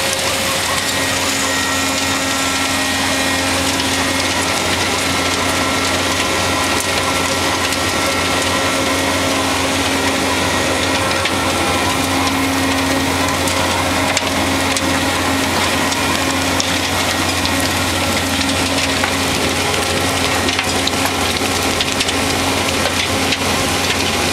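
Backers 3-mtal star screen running steadily: its Perkins diesel engine and driven screen and conveyors give a constant low hum, under a continuous rattle of compost and wood chips being screened and falling off the conveyors onto piles.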